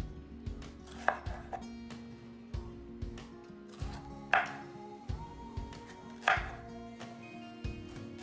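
Kitchen knife cutting a red bell pepper into pieces on a wooden cutting board: a few separate cutting strokes, the sharpest about one, four and six seconds in, over quiet background music.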